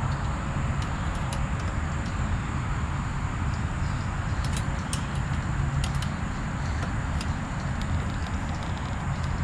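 A steady low rumble with scattered light clicks, a cluster of them about halfway through.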